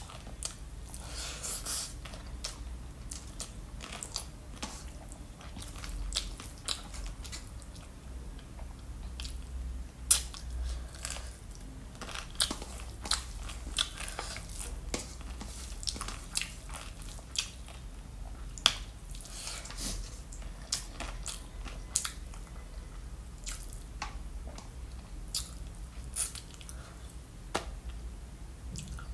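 A person chewing and biting food close to the microphone, with many sharp, irregularly spaced crunchy clicks and wet mouth sounds.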